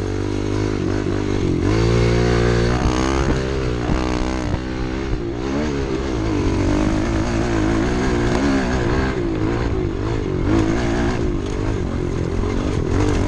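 Pit bike engine being ridden, revving up and down several times in the first few seconds, then running more steadily under throttle.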